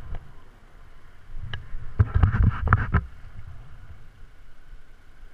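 Wind rumbling on a head-mounted camera's microphone, with a cluster of short knocks and rustles lasting about a second, starting about two seconds in.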